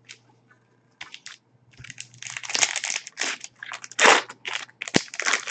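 Foil trading-card pack wrappers crinkling and tearing as packs are opened by hand, in a run of irregular crackly rustles with a sharp snap near the end.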